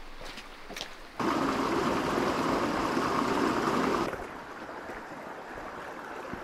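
A few footsteps on wet creek-bed gravel, then shallow creek water running over stones, louder from about a second in and dropping back suddenly at about four seconds to a quieter steady flow.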